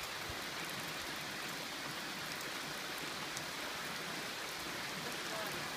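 Steady rain falling, an even hiss with a few separate drops tapping now and then.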